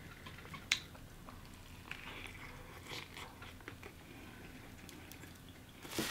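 A person chewing food, faintly, with scattered soft mouth clicks and small crunches and one sharper click shortly after the start.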